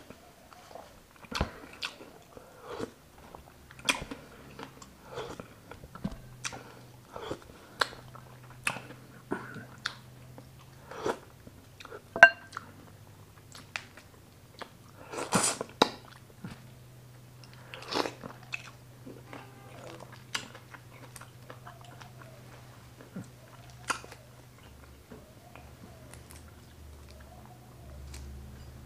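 Close-miked mouth sounds of a person eating: chewing and lip smacks in quick, irregular sharp clicks, with a louder cluster about halfway through. They thin out in the later part. A faint steady low hum runs underneath.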